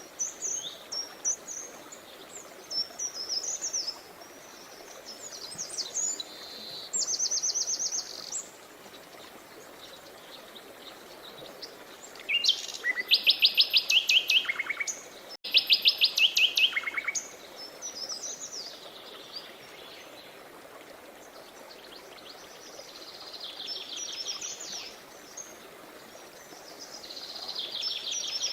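Songbirds singing over the steady rush of a stream: short chirping phrases and fast trills, with two loud rapid trills about halfway through, each stepping down in pitch, and softer trills near the end.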